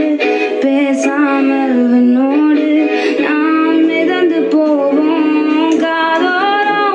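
A song with a high, likely female or child singing voice over light accompaniment, holding and gliding notes, cutting off abruptly at the end.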